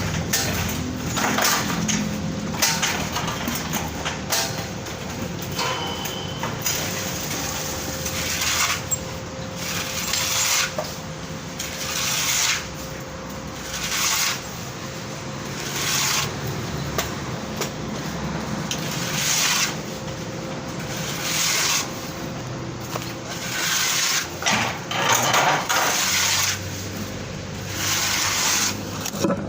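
Repeated rough scraping strokes, about one every one to two seconds, over a faint steady hum.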